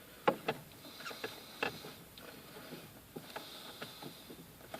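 Plastic steering-column cover and rubber stalk gaiters being handled and fitted: several light clicks and taps, with faint rubbing as the parts slide into place.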